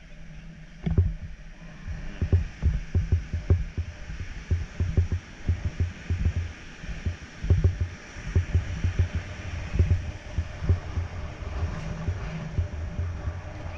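Wind buffeting the microphone in irregular low thumps, over the steady wash of surf breaking on a sandy beach.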